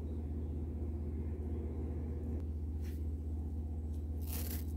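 Steady low background hum and rumble, with a brief soft hiss about four seconds in.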